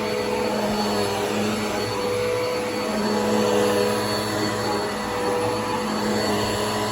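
Bissell PowerForce Helix upright vacuum cleaner running, a steady motor hum and whine over airflow hiss that rises and falls slightly in level as it is worked.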